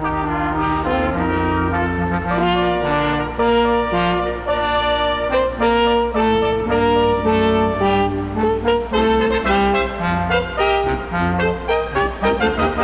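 Brass ensemble playing Christmas music: held chords over a low bass line, with shorter, quicker notes near the end.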